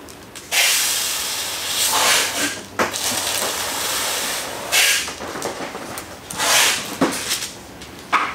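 A sprayer misting slip solution onto a car windshield to keep the glass wet for window-tint film. There is one long hiss of spray lasting about four seconds, then three shorter sprays.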